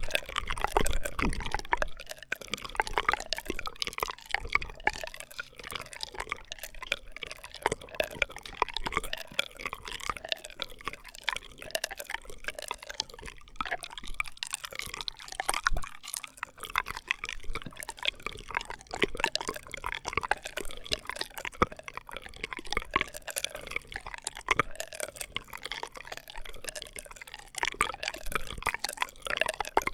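ASMR straw sounds close to the microphone: a dense, continuous run of small wet clicks and crackles.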